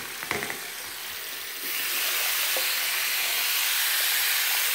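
Running tap water pouring onto a smartphone lying in a basin, a steady rushing splash. A few light knocks come first, and the stream gets noticeably stronger about one and a half seconds in.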